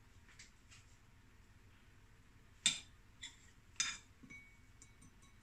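A spoon clinking against a dish while scooping wonton filling: a few light taps, then two sharper clinks about a second apart near the middle.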